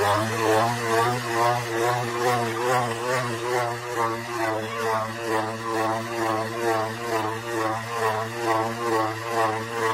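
Motorcycle engine circling inside a steel-mesh globe of death, its pitch rising and falling about twice a second as it laps the sphere.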